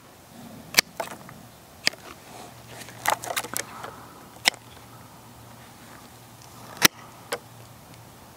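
Hand pruning shears working on climbing rose canes: a scattering of short, sharp clicks and snips, the loudest one near the end.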